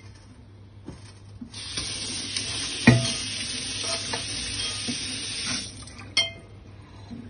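Sizzling hiss of a pumice grill brick being scrubbed across a hot griddle. The hiss starts about a second and a half in and stops near the end, with a sharp knock in the middle and a click shortly after the hiss ends.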